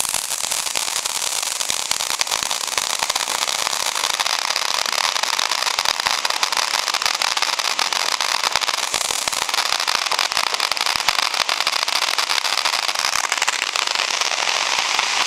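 Ground fountain firework spraying sparks: a steady, dense hiss dotted with rapid crackles that keeps up without a break.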